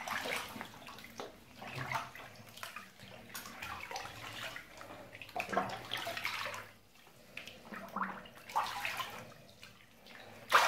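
Water in a bathtub sloshing and splashing in irregular short bursts, with quieter gaps between them.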